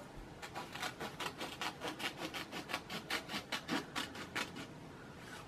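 Scissors cutting a sheet of paper in a quick, even run of snips, about five a second, lasting about four seconds.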